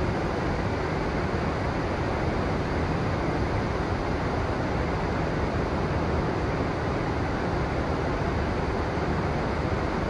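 Steady rush of flowing river water, an even noise with no separate splashes or breaks.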